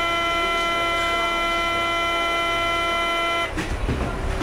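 A loud, steady chord of several held tones that stops abruptly about three and a half seconds in, followed by a rougher rumbling noise.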